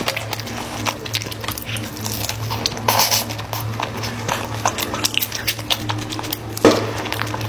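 Close-miked eating: chewing and wet lip-smacking with a rapid run of small mouth clicks. A louder smack comes about three seconds in and a stronger one near the end, over a steady low hum.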